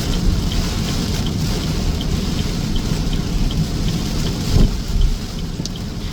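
Heavy rain with a steady low rumble underneath, and a light, regular ticking about four times a second.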